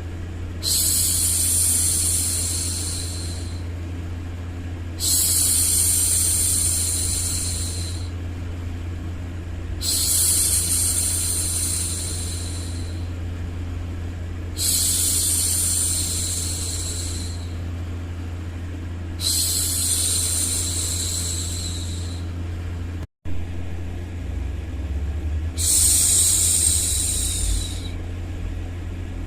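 A woman's voice making long, drawn-out 'shhh' hushing sounds for a baby, repeated about every five seconds, six times, over steady low white noise. The sound cuts out completely for a split second about two-thirds of the way through.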